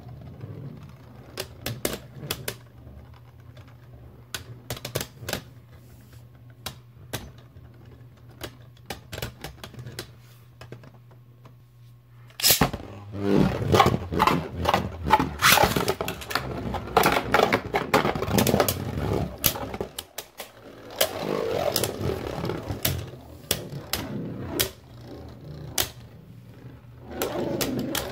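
Dusk Balkesh B5 and Right Artemis A5 Beyblade Burst tops spinning and clattering against each other in a plastic stadium, with a low whir and sharp clicks at each hit. About twelve seconds in the clashes turn loud and rapid for several seconds, then thin out, with another loud flurry near the end.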